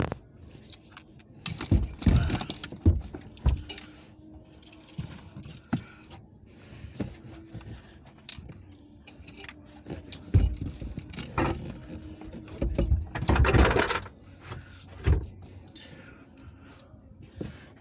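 Irregular metallic clinks, rattles and knocks of things being handled at a car's trunk, heaviest about two seconds in and again from about ten to fourteen seconds.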